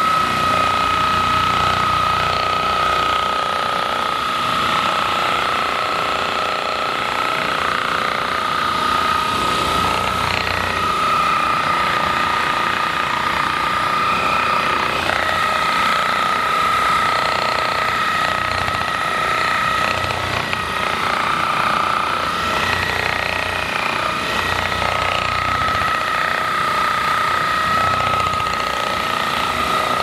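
Handheld percussive massage gun running against a person's back, a steady high motor whine with a rapid rattling hammer underneath, its pitch dipping slightly now and then.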